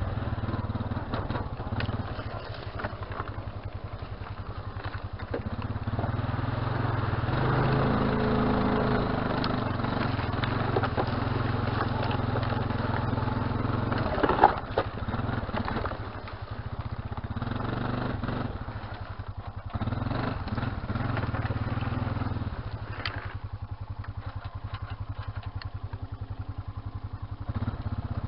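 Honda Rancher ATV's single-cylinder four-stroke engine running as it is ridden over rough trail, its pace rising and easing off. There is a sharp knock about halfway through, and the engine runs quieter near the end.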